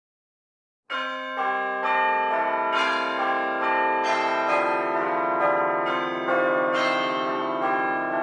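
Church bells ringing in a steady run of overlapping strikes, about two a second, starting about a second in.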